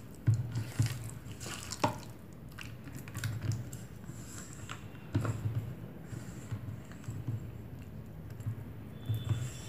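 A hand squishing raw prawns through a thick egg-white and flour masala paste in a steel bowl, making irregular wet squelches, with a couple of sharp clicks about two and five seconds in.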